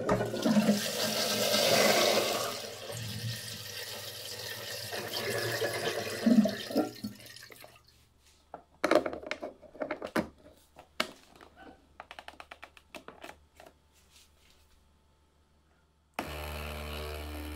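Water rushing and splashing into a sink as a metal colander is emptied, then scattered clicks and a quick run of ticks. About sixteen seconds in, an espresso machine starts with a sudden steady hum.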